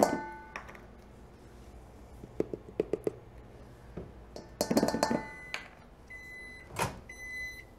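Clinks, taps and a metallic clatter of a measuring cup against a stainless steel mixing bowl as flour is measured in. From about six seconds in, a microwave oven beeps about once a second, signalling that it has finished melting the butter.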